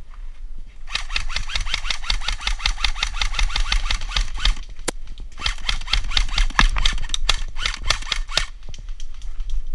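Airsoft rifle firing two long full-auto bursts, a fast even rattle of shots, each burst about three seconds long, with a short pause between them.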